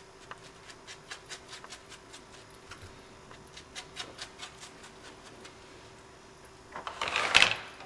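Light, irregular tapping of a small ink dauber dabbed along the edges of a paper card to ink them brown. About seven seconds in comes a louder rustle of card stock being slid and handled.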